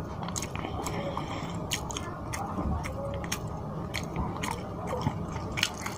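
Close-miked chewing of rice and fish curry, with many short, irregular wet mouth clicks and smacks.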